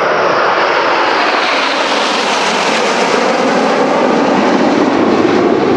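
Roar of BAE Hawk T1 jet trainers flying past in an aerobatic display, a loud continuous rushing sound whose pitch sinks toward the end as they pass.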